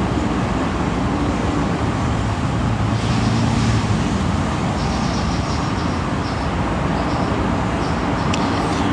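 Steady road traffic noise: a continuous rush with a low hum underneath.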